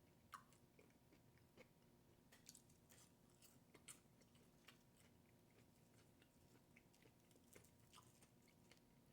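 Faint, close chewing and mouth sounds of someone eating, with irregular soft clicks and smacks, a slightly louder one about half a second in.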